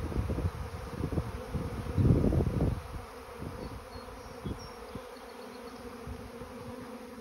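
A swarm of honey bees in flight overhead: the steady hum of many bees buzzing at once. Low rumbling buffets on the microphone during the first three seconds.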